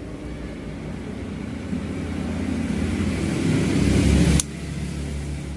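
A low rumbling noise that grows louder for about four seconds, then drops away abruptly with a faint click.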